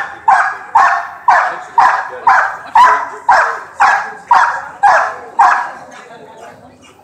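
A 16-month-old dog on a leash barking hard and steadily, about two barks a second, a dozen in all, then stopping near the end. This is agitation barking at a decoy waving a bite suit during bite-work training.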